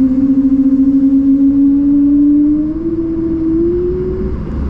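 Airbus A220-300's Pratt & Whitney PW1500G geared turbofans heard from inside the cabin: a loud hum that rises slowly in pitch over a rumbling background, then stops near the end.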